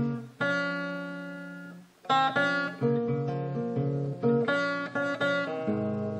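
Acoustic guitar playing chords: one chord rings out and fades away over the first two seconds, then rhythmic strummed chords start up and continue.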